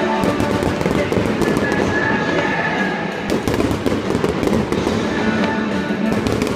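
A fireworks display: many shells bursting and crackling in rapid, overlapping bangs, with music playing underneath.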